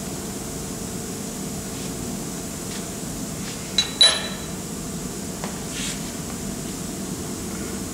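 Two quick metallic clinks about four seconds in, the second ringing briefly, as a metal part is set down on the base of an arbor press, over a steady background hum.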